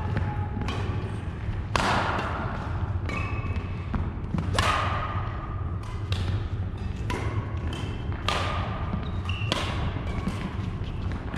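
Badminton rally: rackets hitting the shuttlecock about once a second, each sharp hit echoing briefly in the hall, with short shoe squeaks on the wooden court floor between hits and a steady low hum underneath.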